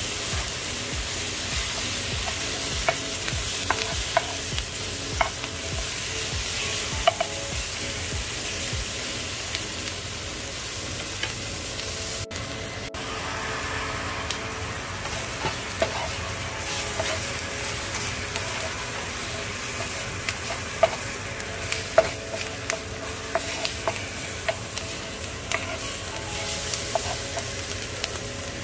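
Sliced onions and bell peppers sizzling as they sauté in a frying pan. A wooden spoon stirs them and clicks and scrapes against the pan every so often.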